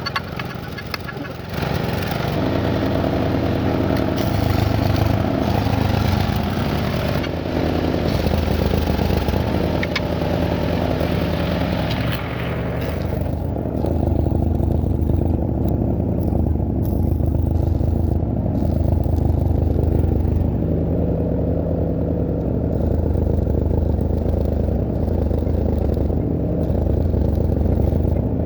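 Motor scooter engine running steadily. A higher hiss over it stops about halfway through.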